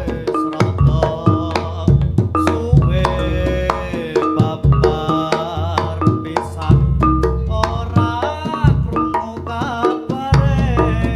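Javanese reog music: hand-drum (kendang) patterns and percussion under a wavering melody line, with heavy deep bass notes coming and going.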